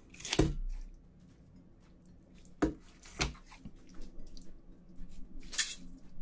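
Scissors snipping noodles in a bowl of cold noodle soup about half a second in, then chopsticks stirring the noodles through the icy broth. The broth drips and splashes, with sharp clicks a little under three seconds in and again just after three seconds, and a short splash near the end.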